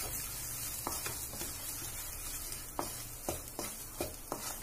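Besan (gram flour) roasting in ghee in a kadhai, sizzling steadily while a wooden spatula stirs and scrapes through it, with short sharp knocks of the spatula against the pan, more of them in the second half. This is the last stage of roasting the grainy besan for laddoos.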